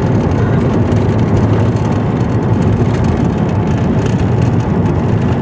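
Steady low rumble of a car's engine and tyres, heard from inside the cabin while driving on a snowy road.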